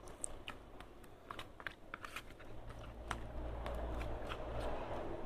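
Small wet clicks and squelches of a hand rubbing and turning seasoned whole catfish in a plate, with a low hum coming in about halfway through.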